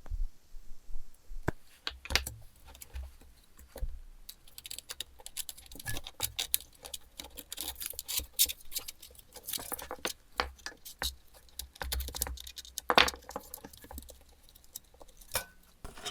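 Small metal parts and wires being handled and fitted: a run of irregular clicks, taps and light rattles, with one sharper knock about thirteen seconds in.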